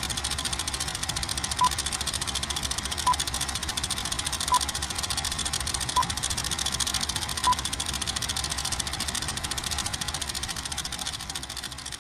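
Film-countdown leader sound effect: the steady, fast clatter and hiss of a film projector running, with a short high beep at each number of the count, five beeps about a second and a half apart. The projector noise starts to fade near the end.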